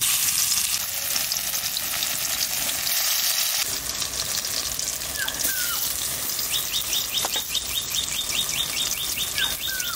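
Bitter gourd leaf and lentil-paste fritter sizzling steadily in hot oil in a wok, the sizzle starting suddenly as the fritter drops into the oil.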